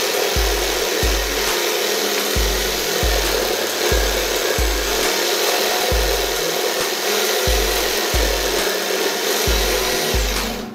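Jigsaw blade mounted under a table, running and cutting through thin board with a steady rasping buzz. It stops suddenly near the end.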